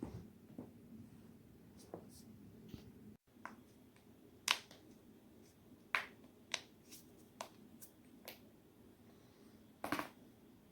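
Neck and back joints cracking: a string of sharp, short pops at uneven intervals, the loudest about four and a half seconds in and a quick cluster of pops near the end.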